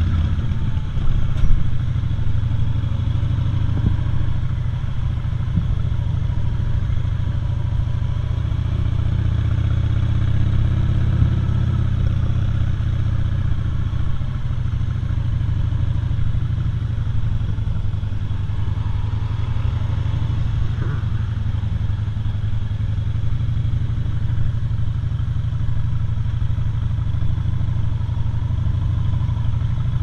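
Cruiser motorcycle engine running steadily at low speed, a continuous low rumble heard from the rider's seat.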